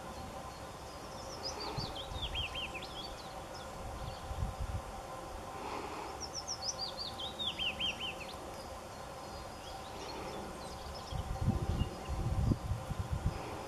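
A songbird sings twice, each phrase a quick run of notes falling in pitch, over a steady outdoor hum. Near the end come a few seconds of low rumbling thumps.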